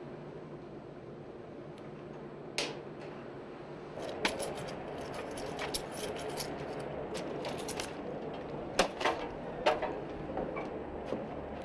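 Steady hum of video editing equipment with a single click, then a run of clicks and a few sharp knocks of footsteps on a metal step and the door of an outside-broadcast truck.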